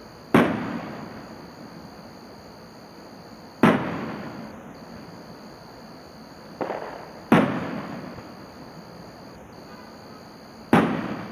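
Distant aerial fireworks shells bursting: four loud reports roughly three and a half seconds apart, each trailing off in a rumble that fades over a second or two, with a smaller pop just before the third.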